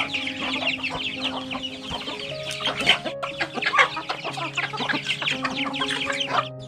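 A flock of chickens clucking and chicks peeping in rapid, overlapping chatter, with a brief break about three seconds in. Background music holds steady notes underneath.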